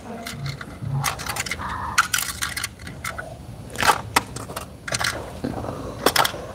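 Small plastic parts of a Barbie Dream Camper playset clicking and clattering as a child's hands move them about, several sharp clicks with light rattling between.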